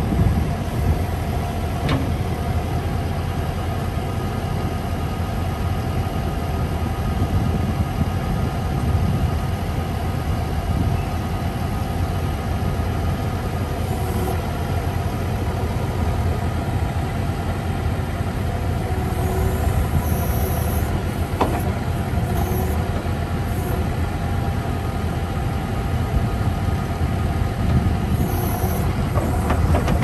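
The diesel engine of a Terex TLB840R backhoe loader running steadily while the backhoe arm is worked, with a few brief high-pitched squeaks in the second half.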